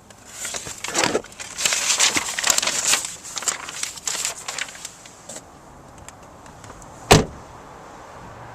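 Rustling and handling noises, then a single solid slam about seven seconds in as the 2012 Chevrolet Equinox's door is shut.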